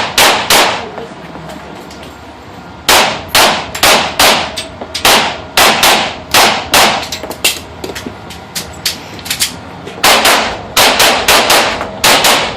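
Handgun fired in rapid strings during a USPSA stage, about two to three shots a second. There is a pause of about two seconds near the start and a quieter stretch in the middle with only fainter shots.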